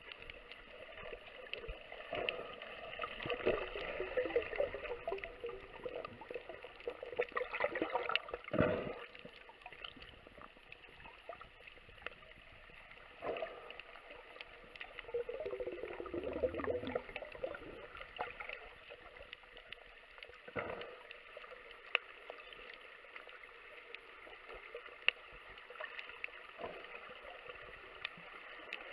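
Underwater gurgling and bubbling in irregular surges a few seconds apart, with a faint steady hum underneath.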